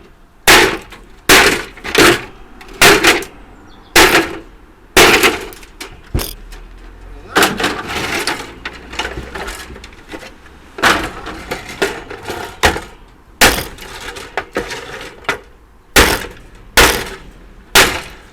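Repeated sharp, cracking blows, roughly one a second, as the casing of a portable air-conditioning unit is broken apart to free another fan motor, with a stretch of rattling and scraping in the middle.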